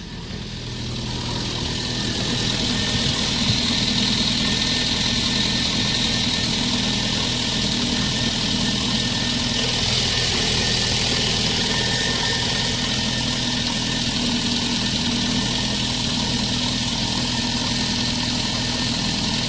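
VAZ 11183 1.6-litre eight-valve engine of a Lada 2114 running steadily at idle, growing louder over the first couple of seconds.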